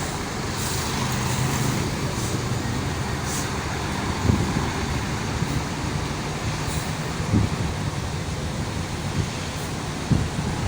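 A bus engine running with a steady low hum amid street traffic, with a few brief knocks about four, seven and ten seconds in.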